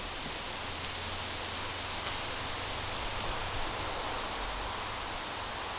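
Steady outdoor ambience: an even hiss with a low rumble underneath and no distinct events.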